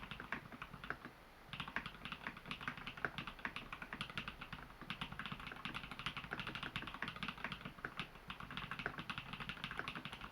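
Typing on a custom mechanical keyboard with lubed, filmed Holy Panda tactile switches in an XO v3 case dampened with Thinsulate: a fast, steady run of keystroke clicks, with a brief pause about a second in.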